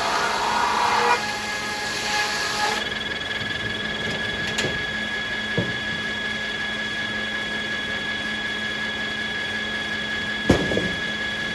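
Sawmill circular saw cutting beech, the cut ending within the first three seconds. The blade then spins free with a steady high whine over the mill's constant hum, broken by a few knocks and one loud knock near the end.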